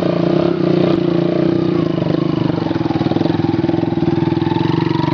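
Small motorcycle engine running steadily as a bike loaded with sacks rides up close, its note pulsing evenly, with a faint rising whine near the end.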